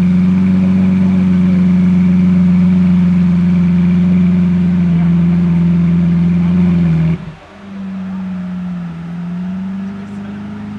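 Lamborghini Aventador Roadster's V12 with a custom aftermarket exhaust, idling loudly and steadily between revs. About seven seconds in it suddenly drops to a quieter idle whose pitch wavers slightly.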